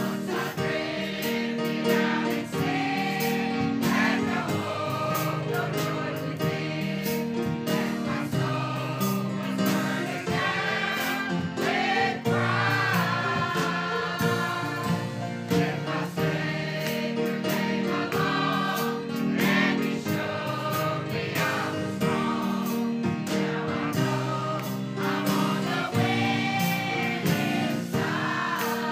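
Mixed church choir singing a gospel song in parts, accompanied by piano and guitars.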